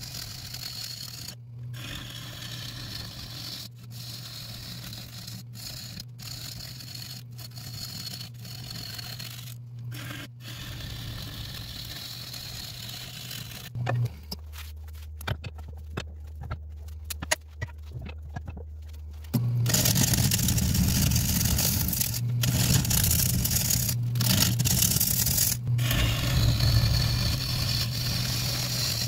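Wood lathe running with a big acacia bowl blank spinning while a bowl gouge cuts the bottom: a steady motor hum under the scraping hiss of the cut. The cutting noise drops away for about five seconds midway, then comes back louder.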